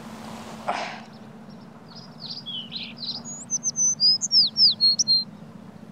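A songbird sings a quick run of high chirps and whistles, many sliding down in pitch. The song starts about two seconds in and lasts about three seconds.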